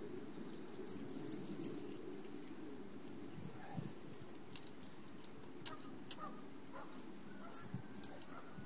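Quiet outdoor ambience: a steady low background hum with faint bird chirps, and scattered small clicks and taps as hands handle a copper ground-rod clamp and cable.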